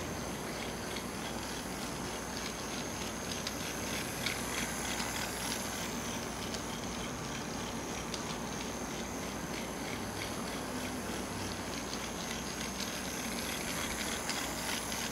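Battery-powered toy bullet train running round a plastic oval track: its small motor whirs steadily, with many light clicks from the wheels on the track. It gets a little louder as the train passes close near the end.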